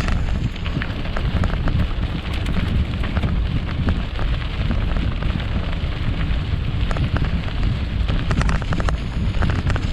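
Wind buffeting a camera microphone: a steady, loud low rumble with many scattered crackles and clicks.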